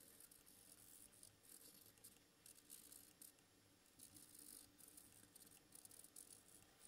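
Faint scratching of a black Sharpie marker's felt tip drawn across paper in short, irregular strokes.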